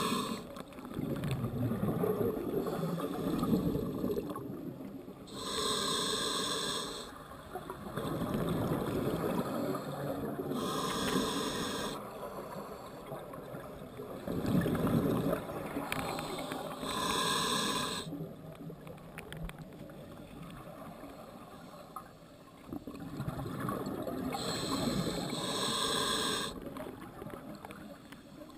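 Scuba diver breathing through a regulator underwater: four hissing inhales, about every five to six seconds, each followed by a longer rumble of exhaled bubbles.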